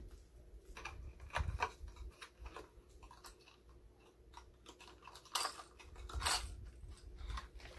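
Packaging being handled by hand: rustling and crinkling with scattered clicks, loudest about a second and a half in and again between five and six and a half seconds in.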